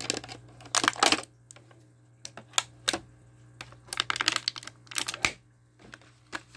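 Clear plastic blister tray crackling and clicking in the hands in short bursts, about six clusters of clicks with pauses between, while scissors cut the twist ties holding an action figure.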